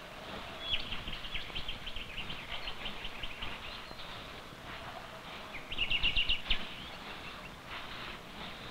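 A bird calling in rapid runs of high chirps: a long chattering run in the first few seconds and a shorter, louder burst past the middle, over a faint outdoor hiss.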